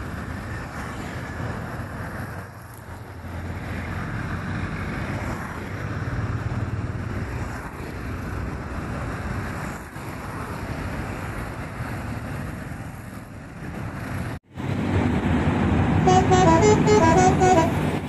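Road traffic and bus engine noise, then after a sudden cut a bus's telolet horn plays a quick multi-note melody near the end.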